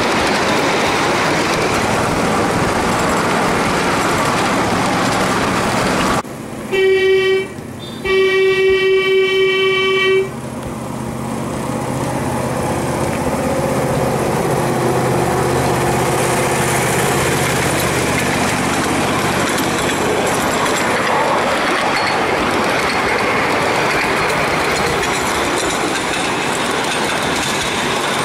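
Ride-on scale model train running on its track, steady rolling noise, with its horn sounding one short blast and then a longer one about a third of the way in. The running noise then builds up again and keeps steady.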